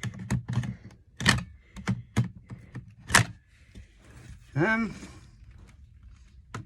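Hard plastic knocks and clacks of a Makita power-tool battery being pushed and shifted against the fan's battery slot, a battery that will not seat because it is the wrong size for this fan. A short rising tone sounds about four and a half seconds in.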